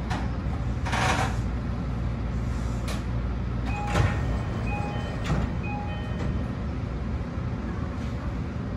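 Steady low rumble inside the cab of a BEC819 DENCHA battery electric train, with a few sharp knocks and a short run of repeated electronic beeps about four seconds in.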